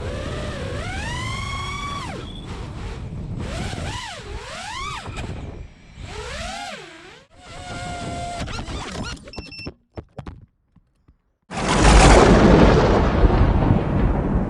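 FPV quadcopter's brushless motors (iFlight Xing 2306 1700kv on 6S) whining, the pitch swooping up and down repeatedly with throttle. A few sharp clicks and a short near-silent gap follow, then about eleven seconds in a loud, dense rushing noise takes over.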